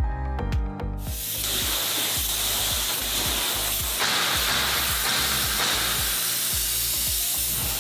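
A steady, loud hiss, like a spray or jet of air or steam, sets in about a second in and carries on, over background music with a beat.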